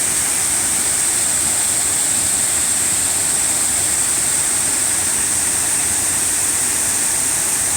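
Waterfall: a steady rush of falling water with an even hiss.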